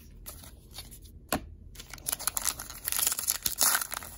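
Baseball cards being handled, with a few light clicks. About halfway in, a card-pack wrapper starts crinkling and tearing, loudly and densely.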